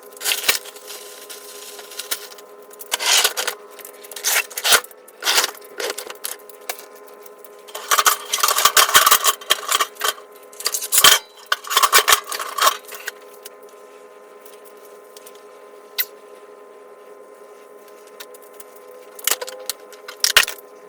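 Repeated clattering and rustling, as of objects being handled, over a steady hum; the bursts are frequent for the first dozen seconds, then only a few isolated clicks.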